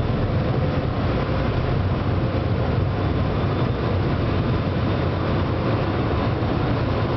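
Steady low rumble of a river boat's engine under way, mixed with wind and water noise.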